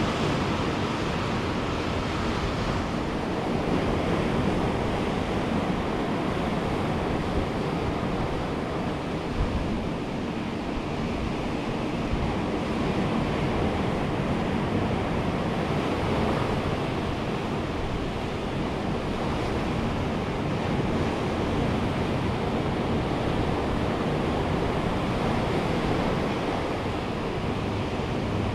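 Ocean surf breaking and washing continuously, a steady rush that swells and eases gently, with some wind on the microphone.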